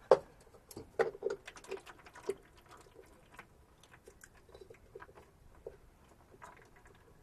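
Case 4230 tractor's hydraulic filter housing being screwed back on by hand: a run of sharp clicks and knocks in the first two and a half seconds, then lighter clicking and rubbing as it is turned up into place.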